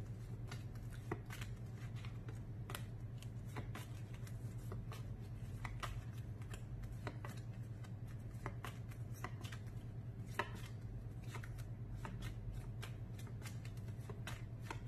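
Stack of paper flashcards being handled in the hands, faint irregular clicks and rustles over a steady low hum.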